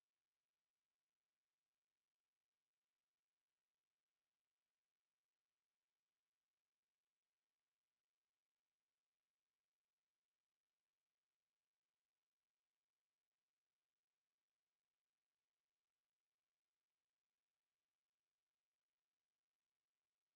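A single steady, high-pitched 10626 Hz sine-wave test tone, unbroken and at constant level.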